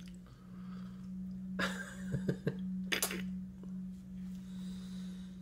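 Two short cough-like bursts from a person, about one and a half and three seconds in, with a couple of small clicks between them, over a steady low hum.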